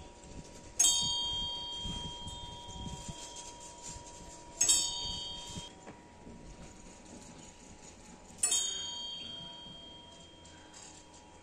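The bell on a large Buddhist prayer wheel, struck once per turn as the wheel is pushed round. It rings three times at an even pace, about four seconds apart, each ring fading out slowly.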